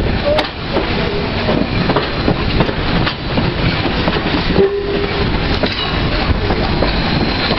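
Nickel Plate Road 765, a 2-8-4 Berkshire steam locomotive, and its train rolling along, the wheels clacking over rail joints and switch work while steam escapes from under the engine. A brief squeal comes a little past the middle.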